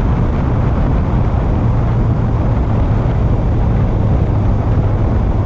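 Honda CB650F's inline-four engine running at steady revs under way, its note holding even, with wind and road rush over it.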